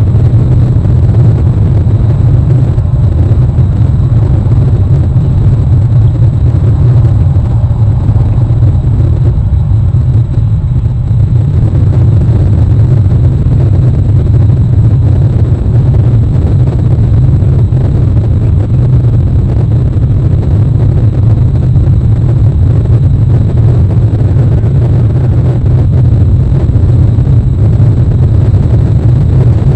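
Steady, loud low rumble of wind buffeting the nest camera's microphone.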